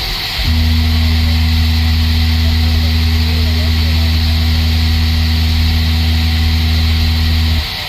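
A car audio subwoofer system plays one steady, loud low bass tone for about seven seconds, with a few overtones above it. It starts about half a second in and cuts off suddenly just before the end.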